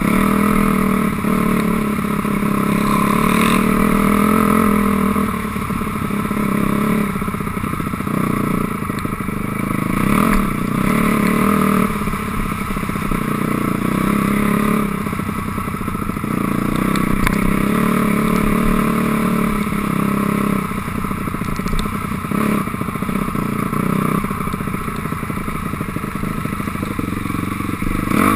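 2006 Honda CRF250R dirt bike's single-cylinder four-stroke engine running as it is ridden along a trail, the engine note rising and falling with the throttle every few seconds.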